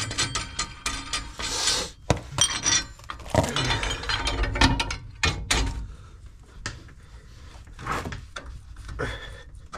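Steel tool parts clinking, clicking and scraping as a threaded-rod bearing press is taken off an Opel Admiral B wheel hub and a metal ring is fitted over the newly pressed-in wheel bearing. The handling is busiest in the first half, then thins to scattered clicks.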